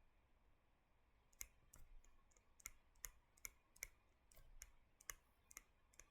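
Faint, irregular clicks and taps of a writing tool as notes are written, about a dozen at uneven intervals.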